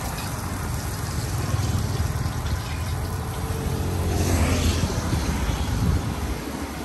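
Roadside street noise: a steady low rumble of traffic under a constant hiss, with a vehicle passing about four seconds in.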